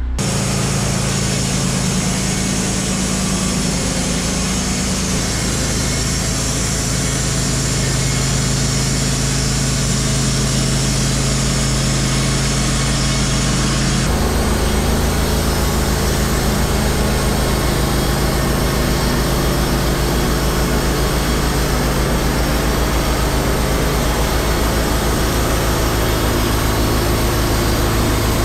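A Wood-Mizer LT15 Wide portable bandsaw mill running steadily, its engine and band blade sawing through a hemlock log.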